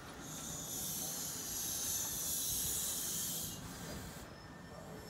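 Compressed air hissing from an NJ Transit bilevel commuter train for about three seconds as it comes to a stop, then cutting off, over a faint low rumble from the train.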